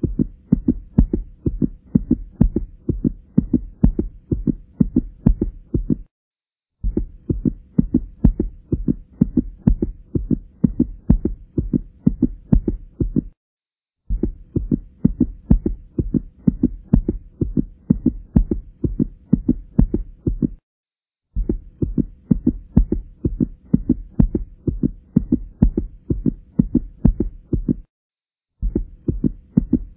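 A rhythmic low thumping at about three beats a second with a faint steady hum under it, repeating as a loop in stretches of about six seconds separated by brief silences.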